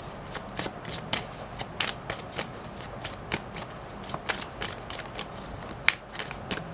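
A deck of tarot cards being shuffled by hand, a steady run of quick, irregular card clicks and flutters while a clarifier card is drawn.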